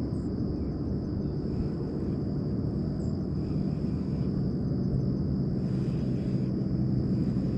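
Steady low outdoor rumble, like a distant engine drone, with a constant thin high-pitched tone above it and a few faint high chirps.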